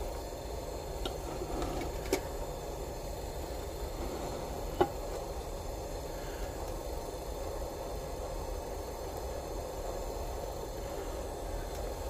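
A few light metallic clicks and taps as a small canteen-cup camp stove and its parts are handled and set down on a bench, the sharpest tap about five seconds in, over a steady background hum and hiss.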